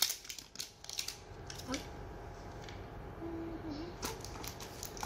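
Paper strip and crinkly wrapping crackling and rustling in a few sharp bursts as they are peeled off a plastic toy capsule, then quieter handling with an odd click.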